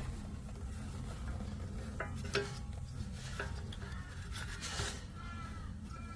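Several sharp clicks and a scraping rub of tools and metal parts being handled at the rear wheel hub, the ABS wheel-speed sensor being worked out of or into its mounting.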